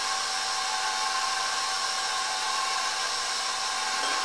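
Electric stand mixer running steadily while it mixes cookie batter in its steel bowl. The motor gives an even whine with several constant tones over a hiss.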